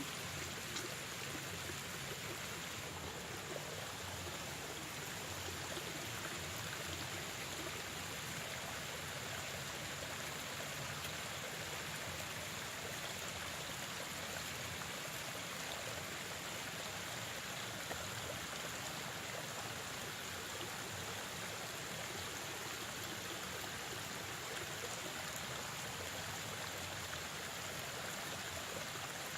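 Steady rush of flowing stream water, with a thin, high steady tone running over it.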